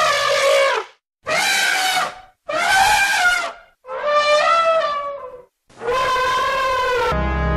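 Elephant trumpeting: five separate calls of about a second each with brief silences between them, the pitch rising and falling within each call.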